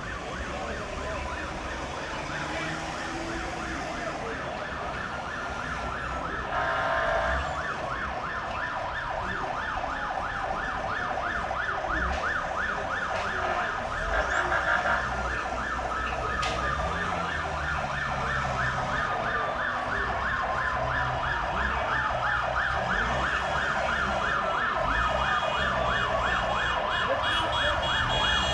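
Sirens of several ambulances in a slow convoy sound over one another, a fast yelp overlapping slower falling wails, with vehicle engines running underneath. The sirens grow gradually louder.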